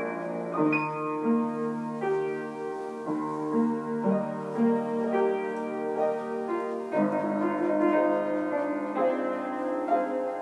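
Piano being played: a slow melody over sustained chords, with new chords struck every second or so.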